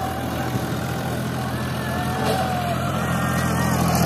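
Diesel farm tractor engine running steadily as the tractor drives across dry dirt.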